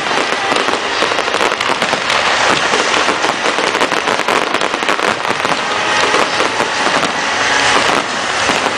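Fireworks display at its height: a dense, continuous crackling and popping of many shells bursting at once.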